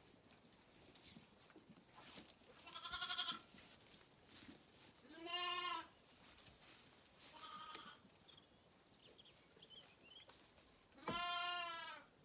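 Zwartbles lambs bleating four times. The first bleat, about three seconds in, is quavering, and the last, near the end, is the longest and loudest.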